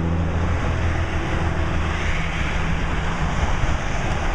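Street traffic: a nearby engine's low hum fades about half a second in, leaving a steady rush of passing-vehicle noise.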